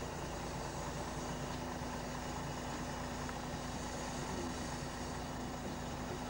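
A milk tanker's engine and milk pump running steadily with a constant low tone, while milk is pumped through the hose from the farm during collection.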